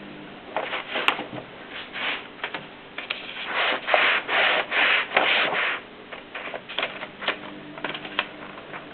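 Mignon index typewriter being worked: scattered sharp clacks and clicks, with a stretch of rubbing, sliding noise in the middle lasting about two seconds.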